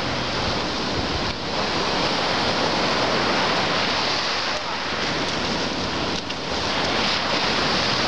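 Black Sea surf: waves breaking and washing up the shore in a steady rush.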